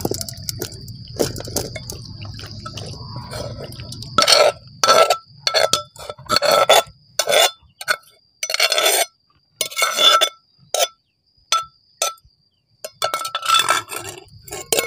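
Metal spoon scraping and knocking against the inside of a clay mortar in a series of short strokes, starting about four seconds in, as wet pounded salad is scooped out.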